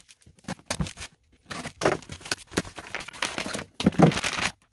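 Cardboard box and plastic packaging rustling and crinkling in irregular bursts as a battery pack is unpacked, the loudest burst about four seconds in.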